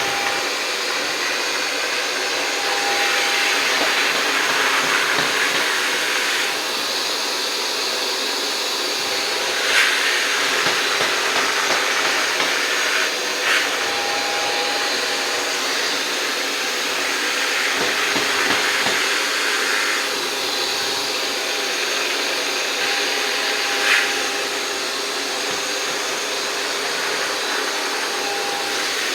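iRobot Roomba Plus 505 combo robot vacuum running while it cleans: a steady suction hiss with a faint motor whine. Three short sharp knocks stand out along the way.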